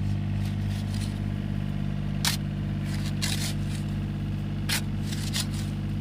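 A spade chipping and scraping at hard rock in a narrow trench, four sharp strikes, the loudest about two seconds in. Under it, a small tracked excavator's engine idles steadily.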